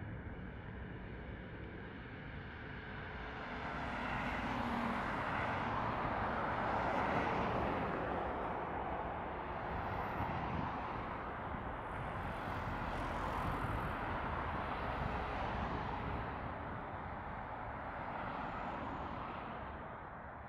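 Airbus A320-200 jet engines during a landing: a broad roar that builds over the first few seconds, holds loud through the middle and eases off near the end.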